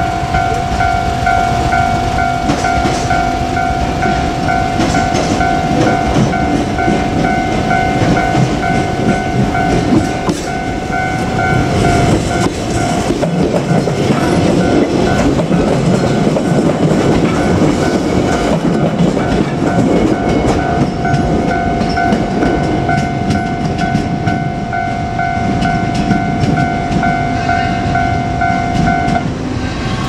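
Japanese level-crossing warning bell ringing in a steady repeating ding, over the wheels and running gear of a JR Kyushu 817 series electric train clattering slowly over the rail joints as it passes. The bell stops about a second before the end.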